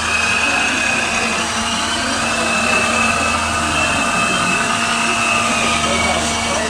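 Radio-controlled scale truck driving: a whine from its electric motor and gearbox that drifts up and down in pitch over a steady low drone.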